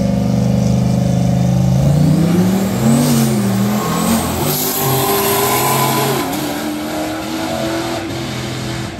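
Engines of a pickup truck and a car at the starting line, held at a steady pitch, then launching about two seconds in and accelerating down the strip. The engine pitch climbs and drops back several times as they shift gears.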